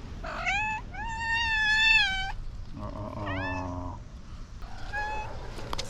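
Domestic cat meowing: a short rising meow, then a long drawn-out meow, then a lower, moaning call about three seconds in and a brief meow near the end.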